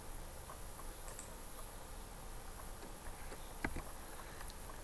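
Quiet room tone with faint hiss and a low hum, and one sharp click about three and a half seconds in.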